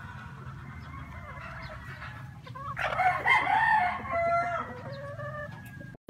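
Gamefowl rooster crowing once, a long call starting about three seconds in, with hens clucking.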